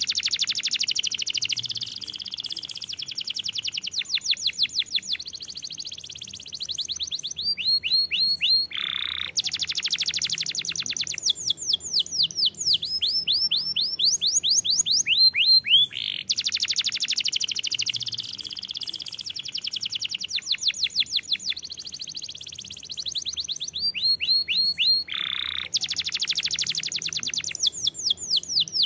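Domestic canary singing a long, unbroken song of rapid trills: fast runs of repeated high notes, one run after another, each at its own pitch and speed. The same sequence of phrases starts over about halfway through.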